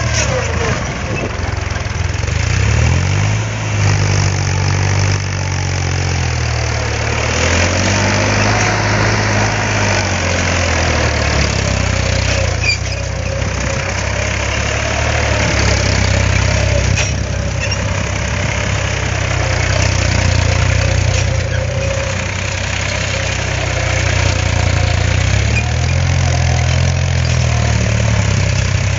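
Tractor diesel engine working under load as it pulls a disc implement through dry soil, running steadily with its note rising and falling a few times.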